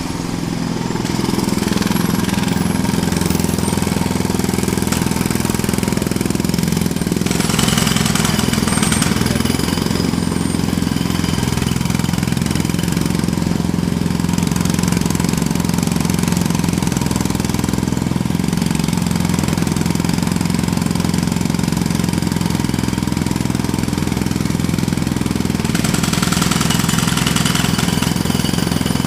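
Jackhammer hammering continuously with a rapid, steady beat under a low drone. It starts suddenly, and the hammering turns harsher and brighter for a couple of seconds about seven seconds in and again near the end.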